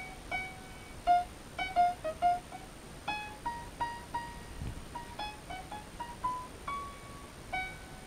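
Lofi background music: a soft electric piano melody of single notes struck two or three a second, each fading away.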